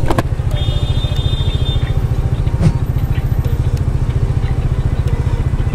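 Motorcycle engine idling with an even, rapid low pulse. A brief high-pitched tone comes in about half a second in and lasts just over a second.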